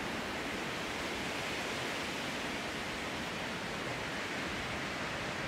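Strong wind rushing steadily through the redwood forest canopy, an even roar with no gusts or cracks standing out.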